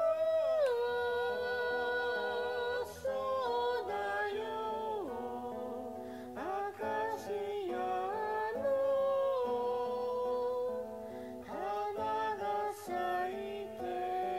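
A song playing: a voice singing a slow melody with vibrato over instrumental backing.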